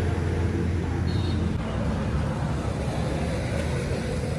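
Tractor engine running: a steady low hum that turns rougher and uneven about a second and a half in.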